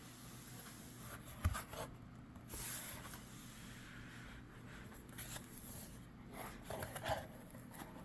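Faint rubbing and rustling of packaging as hands handle and unwrap a boxed item, with a few light taps.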